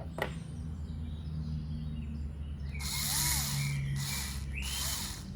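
Worx WX240 cordless electric screwdriver's motor run in short bursts, starting about three seconds in: four brief spins with a whir that rises and falls each time, as the trigger is pressed and released.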